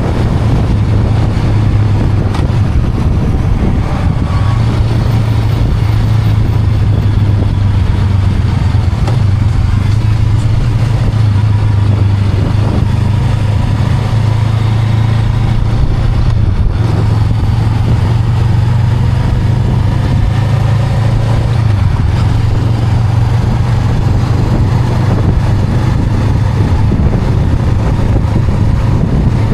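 Honda Rebel 500's parallel-twin engine running on the move, a steady low drone with a brief dip about halfway through.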